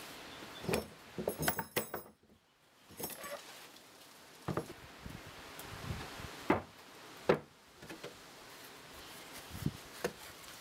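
A few light clinks of metal clamp parts, then a series of separate sharp wooden knocks as laminated pallet-board strut units are handled and knocked against a wooden workbench top.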